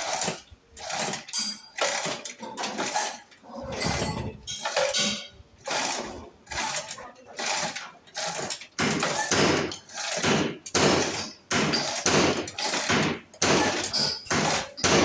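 Hammer striking metal over and over, about two blows a second, each with a short ring.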